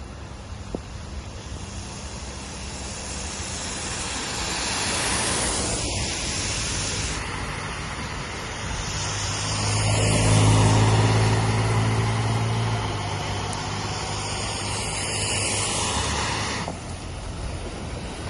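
Steady, noisy outdoor ambience of road traffic in stormy weather, changing abruptly a few times. About ten seconds in, a vehicle engine passes close with a low hum, the loudest moment.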